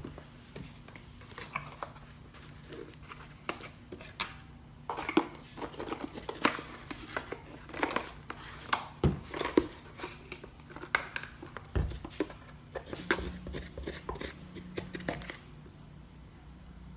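Scattered light clicks, taps and rustles of spice containers and their lids being handled over a kitchen counter while a bowl of seasoned flour is made up, at irregular intervals over a faint low hum.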